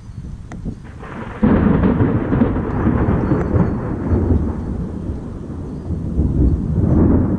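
Thunder from a monsoon thunderstorm: a low rumble that breaks in suddenly about a second and a half in and rolls on for several seconds, swelling again near the end.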